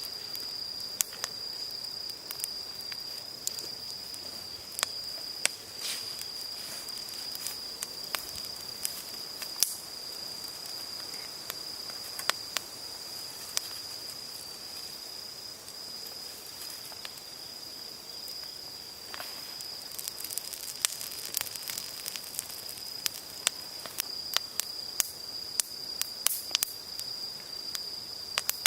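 Wood campfire crackling, with sharp irregular pops that come more often in the last third. Under it runs a steady, high-pitched trill of insects at one unbroken pitch.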